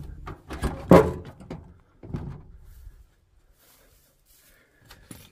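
Several sharp knocks and clunks in the first two seconds, with a last one about two seconds in.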